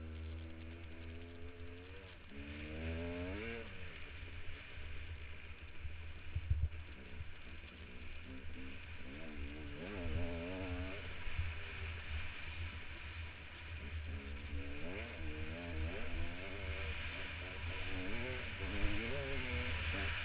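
Dirt bike engine revving, its pitch rising and falling several times as the rider accelerates and eases off, with heavy wind rumble on a helmet-mounted microphone.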